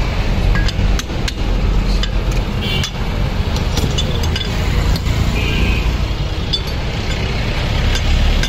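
Metal parts clinking and clicking irregularly as a metal housing and loose components are handled and worked apart by hand, over a steady low rumble.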